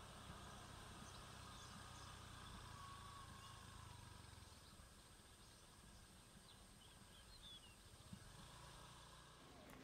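Near silence: faint outdoor ambience with a few distant bird chirps and a low hum in the first half.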